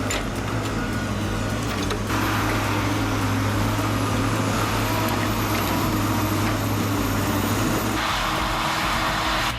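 Heavy forestry machine's engine running steadily under load, a deep, even drone. The overall sound shifts abruptly about two seconds in and again about eight seconds in.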